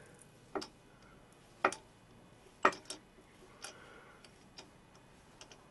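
Taper tap turned by hand in a tap wrench, cutting a thread into a metal part: a series of short, sharp metallic ticks, roughly one a second, as the tap bites and is worked round.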